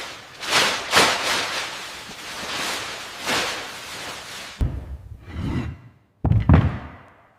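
A run of loud swishing whooshes, then two deep thuds, the second one the loudest.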